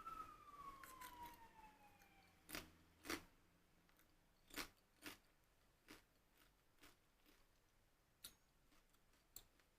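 An ambulance siren fades out with a slowly falling pitch over the first two seconds or so. Then corn tortilla chips are bitten and chewed: a series of separate crisp crunches, the loudest about two and a half to three seconds in, growing fainter and sparser toward the end.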